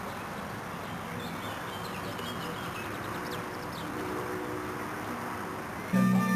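Birds chirping a few times over the steady running noise of a river cruiser under way. Music starts suddenly and loudly near the end.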